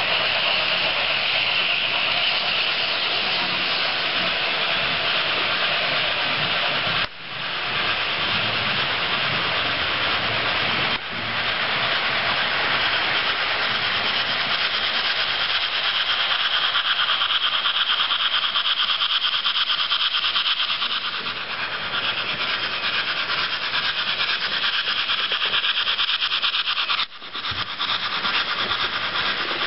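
H0 model steam locomotives with ESU LokSound decoders, their small onboard speakers playing a steady steam chuffing and hiss, mixed with the rolling noise of the model train's wheels on the track. The sound breaks off briefly three times.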